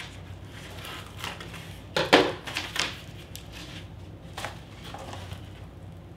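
Corrugated cardboard packaging crinkling and rustling as a potted plant is unwrapped from it, in scattered short crackles with a louder clatter about two seconds in.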